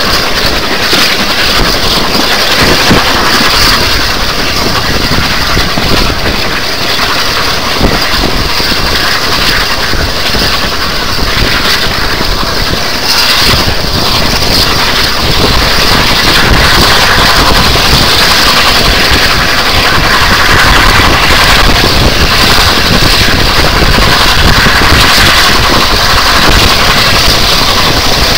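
A heritage train running at speed, heard from an open carriage window: steady running noise from the wheels and the locomotive ahead, mixed with wind buffeting the microphone. The noise grows a little louder about halfway through.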